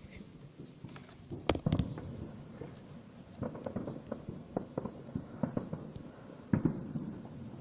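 Fireworks going off: a sharp bang about a second and a half in and another near the end, with a run of smaller crackling pops in between.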